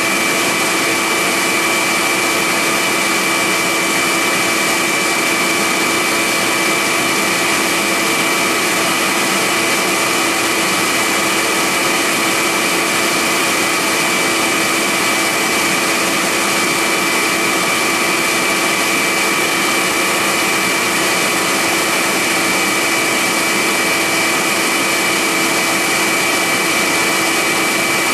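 Central Machinery benchtop milling machine, converted to CNC, running a cut on a mold, together with the steady rush of a vacuum hose held at the cutter to clear chips. A loud, unchanging din with a few fixed whining tones.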